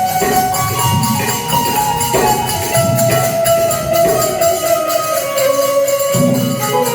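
Music: a melody of long held notes that step from pitch to pitch over steady, evenly spaced jingling percussion.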